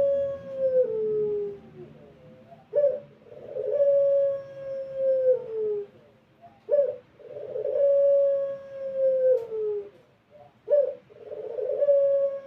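Puter pelung, a domestic Barbary dove kept for its long drawn-out coo, cooing: a short clipped note followed by a long held coo that drops in pitch at its end, repeated about every four seconds. There are three full phrases, with the tail of an earlier coo at the start.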